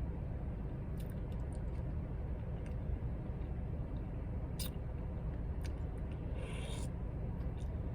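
Quiet eating sounds: a few small clicks and a brief rustle about six seconds in, over a steady low hum.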